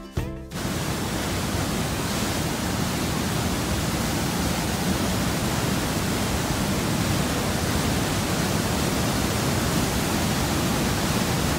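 Waterfall: a steady rush of falling water, starting about half a second in.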